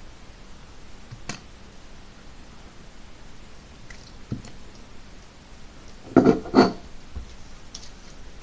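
Jiggly slime being handled and squished: mostly quiet, with a light click about a second in and two short squishes about six seconds in.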